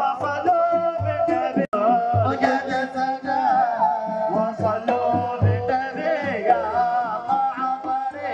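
Live Dhofari folk music: men singing a gliding melody over a steady, regular drum beat. The sound cuts out for an instant about a second and a half in.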